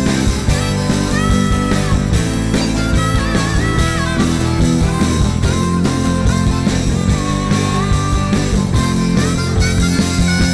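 Live rock band playing an instrumental break: a guitar lead with bent, gliding notes over bass and a steady drum beat.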